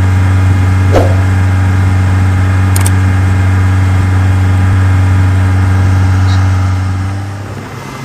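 Speedboat's outboard motor running steadily under way, an even low hum that eases off near the end, with a short click about a second in.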